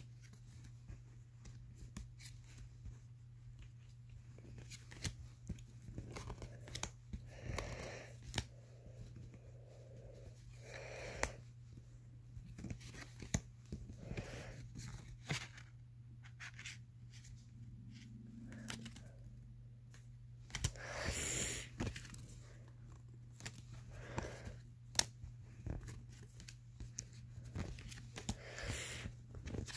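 Pokémon trading cards being handled and flipped through: card stock sliding and snapping against other cards in short, irregular swishes and clicks, over a steady low hum.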